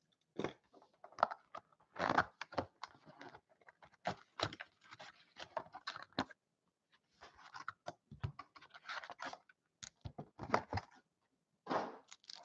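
Cardboard trading-card box being torn open and handled on a tabletop: irregular scrapes, taps and rustles of cardboard, with two brief pauses.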